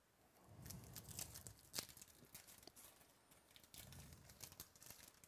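Wrapper of a Topps Chrome baseball card pack crinkling and tearing as it is opened by hand: faint, scattered crackles, with dull handling bumps about a second in and again near four seconds.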